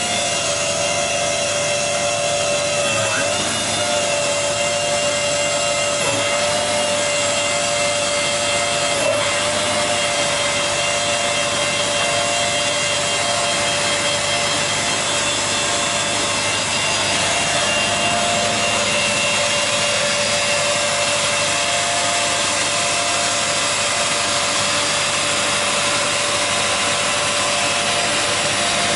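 Weinig Profimat 22N four-sided planer-moulder running light just after start-up, its cutter spindles spinning with a steady high whine of several tones. The tone shifts slightly a few times in the first ten seconds, then holds steady.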